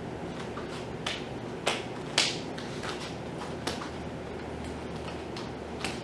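Arnis sticks knocking together in a fast hubud exchange: a handful of short, sharp clacks at uneven intervals, the loudest about two seconds in.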